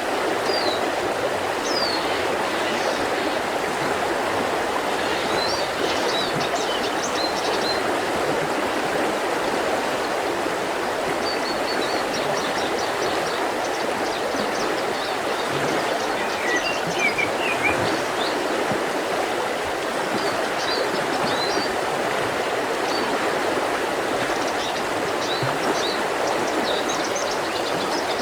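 Mountain river flowing in a steady, unbroken rush, with small birds chirping and singing in short phrases above it at intervals.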